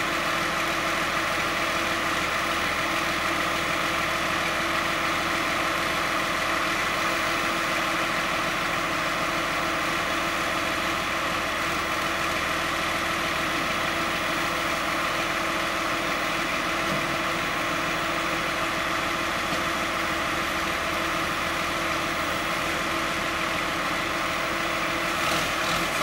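Backhoe loader's diesel engine idling steadily.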